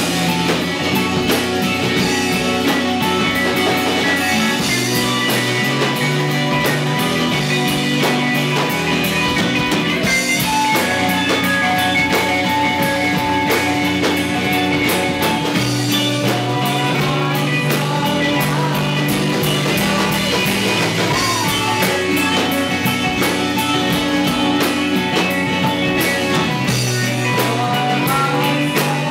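Live rock band playing an instrumental stretch: electric guitars and bass guitar over a drum kit, with the bass moving between held notes.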